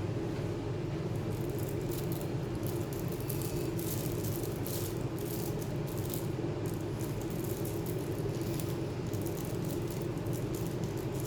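Light, irregular clicking and rattling of small hard parts and tools being handled, over a steady low hum.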